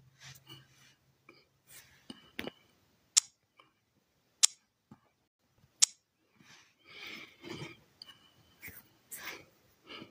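Handling noise from a phone held close: three sharp clicks about a second and a half apart, with soft rustling and shuffling around them.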